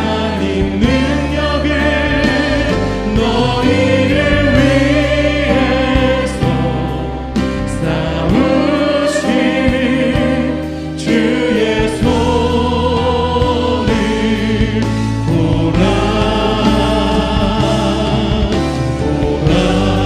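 Korean contemporary worship song: a worship leader sings over a live band with drums and keyboards, with a steady beat.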